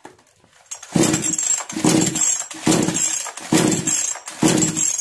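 Kisan Kraft KKC SP6522 two-stroke petrol chainsaw being pull-started: the recoil starter rope is yanked about five times in a steady rhythm, just under a second apart, and the engine turns over on each pull without catching. It is a no-start while the carburetor's H and L screws are being adjusted.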